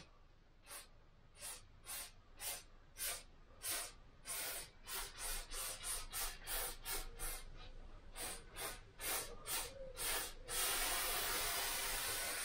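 Aerosol lubricant sprayed onto window trim in a run of short squirts, about two a second, then one longer continuous spray of a couple of seconds near the end.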